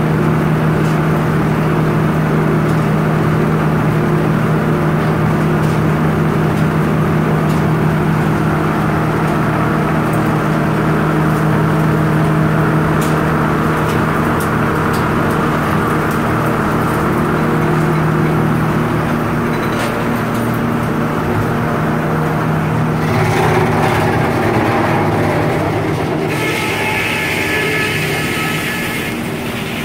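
Sawmill machinery running with a steady low hum. A higher whine joins in for the last few seconds.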